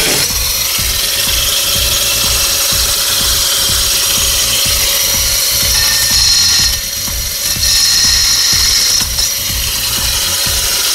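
Homemade battery-powered pruning saw, a small circular saw disc driven through a pinion and crown gear by a 24-volt electric motor, running with a steady whine while it cuts through hard orange-tree branches. The sound changes briefly about seven and nine seconds in as the blade bites into the wood. Background music with a beat plays underneath.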